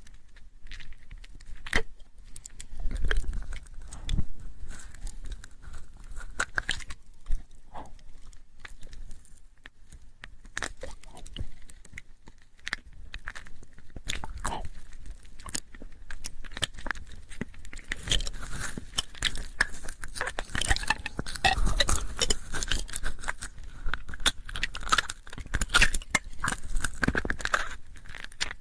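Close-miked ASMR mouth sounds into a binaural microphone: a string of wet clicks and smacks, sparse at first and much denser and busier from about two-thirds of the way in.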